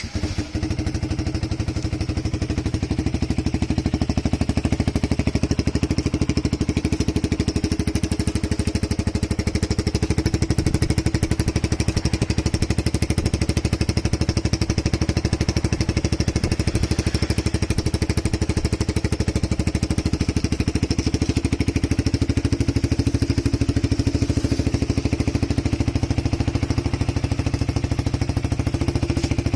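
Yamaha YZF-R15's single-cylinder engine starting, then idling steadily through an aftermarket Chinese-made silencer, with a fast, even exhaust pulse.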